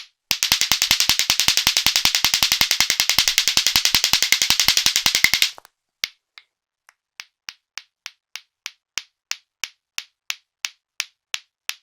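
Lato-lato clackers, two hard plastic balls on strings knocking together: a fast, continuous run of sharp clacks for about five seconds, then after a short break a steady, slower clacking at about three strikes a second.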